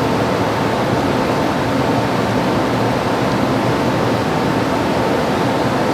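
Steady rushing noise of a running motor and fan, with a faint steady whine on top.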